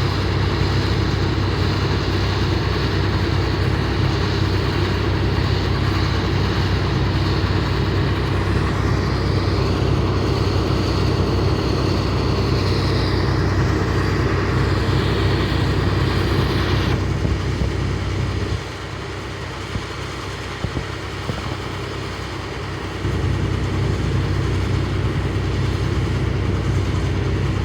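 Claas Lexion combine harvester running steadily while harvesting corn: a deep, even engine drone with a mechanical hiss above it. The low drone falls away for about four seconds past the middle, then comes back.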